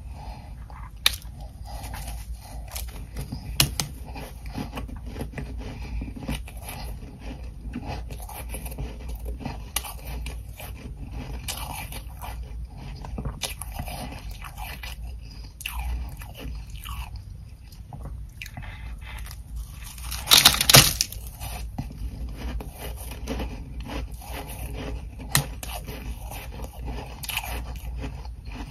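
Ice chunks coated in soft humidifier frost being bitten and chewed close to the microphone: continuous crunching and scraping, with one much louder burst of crunching about two-thirds of the way through.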